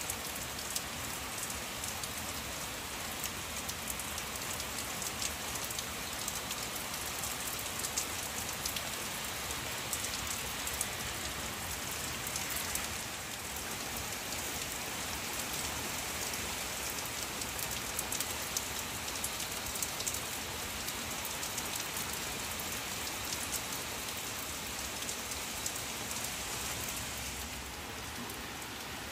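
Steady rain falling on leafy garden plants, with many close single drops clicking.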